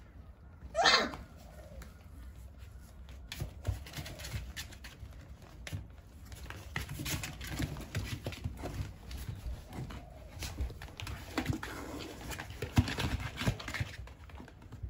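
Young chocolate Labrador puppies: one gives a short high yelp about a second in, then there is steady scrabbling and scratching of paws on cardboard and bedding, with small clicks and knocks.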